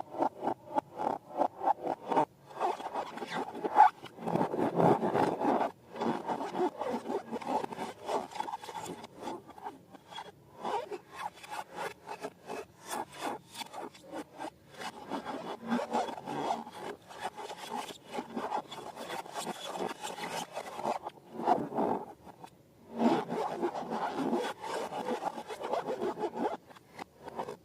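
Hands working slime, a run of rhythmic squishing and rubbing strokes, about three or four a second at first, with brief pauses between bouts.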